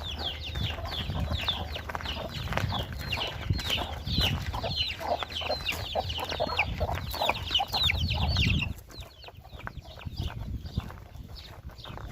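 Chickens and chicks calling: many rapid, short, falling peeps with lower clucking beneath. The sound drops sharply in level about nine seconds in, and fainter peeps carry on after that.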